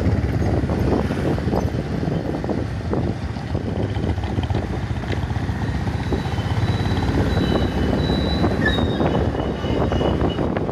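Motorcycle engines running steadily while riding along a road, with wind rumbling on the microphone.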